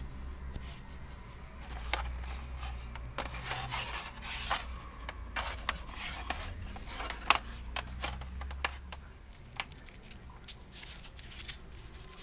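Handling noise from hands working cables at the plastic back of a pen display: scattered clicks, taps and rubbing, busiest in the middle and thinning out near the end.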